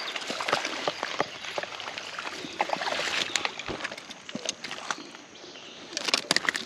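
Creek water splashing and sloshing as a small hooked fish is reeled to the bank, with the clicking of a baitcasting reel being cranked. A cluster of sharp clicks comes near the end as the landing net is brought out.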